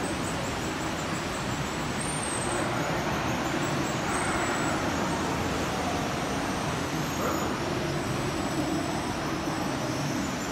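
Surf churning and breaking among the rocks inside a sea cave, a steady reverberant roar, with a few faint calls from the Steller sea lions hauled out there rising over it now and then.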